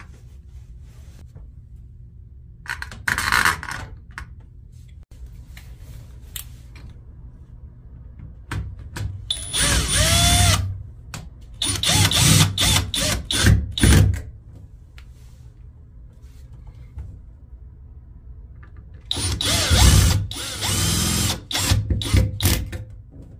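Cordless drill driving screws through a shower trim plate in several short runs, one spinning up with a rising whine about ten seconds in, and some runs broken into rapid clicking.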